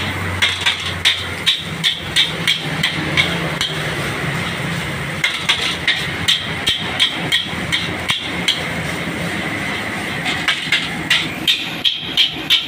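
Metal spatula striking and scraping a steel wok while stir-frying fried rice, about three sharp clanks a second in three runs with short pauses between, over a steady hiss.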